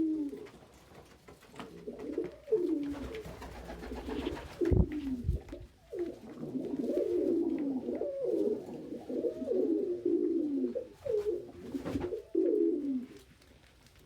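Domestic pigeons cooing over and over, each coo sliding down in pitch, sometimes two birds at once. A dull low thump comes about five seconds in.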